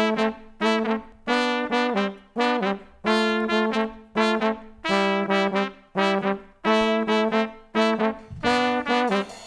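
A brass band's horn section (trumpet, trombone and saxophones) playing a short, repeated riff in chords, each phrase clipped off with a brief gap before the next, with no drums or bass underneath.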